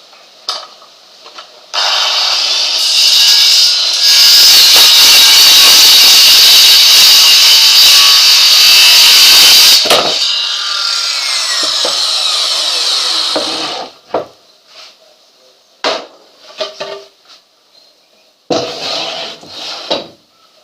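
Electric power saw starting up and cutting through a purpleheart hardwood board for about six seconds, then the blade winding down with a falling whine. A few knocks and a short clatter of the wood being handled follow near the end.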